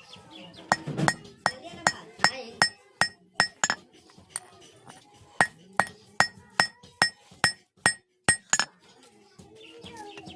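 Blacksmith's hand hammer striking steel on an anvil, about eighteen ringing metallic blows at two to three a second with a couple of short pauses, while forging a chisel.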